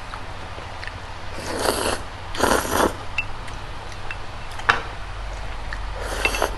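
Spicy noodles being slurped: two short noisy slurps in quick succession about a second and a half in, another near the end, and a single sharp click of a utensil on a dish in between.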